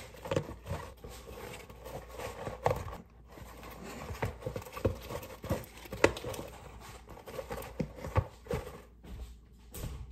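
Romaine lettuce leaves being packed by hand into a plastic food container lined with paper towel: irregular light knocks of leaves and hands against the plastic, with crisp leaf crackles.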